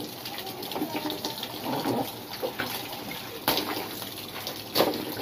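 Water running into a washtub that holds a soaked blanket, with sloshing as it is trodden and handled. There are a couple of sharper splashes around the middle and near the end.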